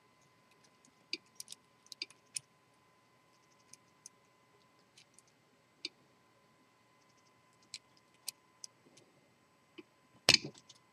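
Faint, irregular metallic clicks and ticks of a pick turning the discs inside a three-disc Sargent & Greenleaf disc-detainer padlock, with a louder clatter near the end.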